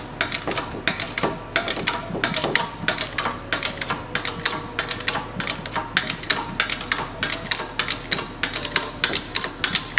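Shop press being worked to push the old rear hub bearing out of a VAZ 2110 hub: a fast, uneven series of sharp clicks, about three to five a second.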